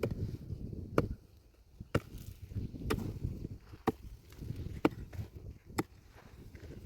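Repeated sharp blows of a hand tool, about one a second, with a low rumbling noise between them.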